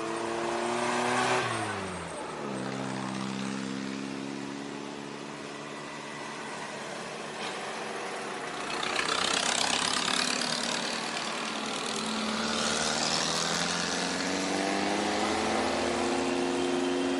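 Off-road 4x4 vehicle engine running: the revs drop over the first couple of seconds, hold steady, then climb again towards the end. A rushing noise swells over it in the middle.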